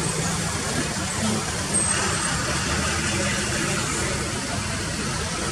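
Steady jet engine noise from an Airbus A330-243 airliner's Rolls-Royce Trent 700 turbofans as it taxis, heard from a distance.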